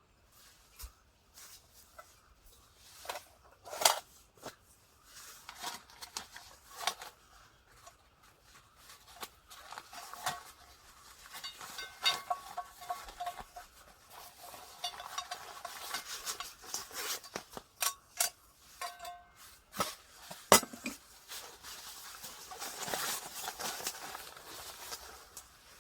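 Objects being handled: irregular clicks, knocks and light clatter with rustling, with two louder knocks about 4 seconds in and about 20 seconds in.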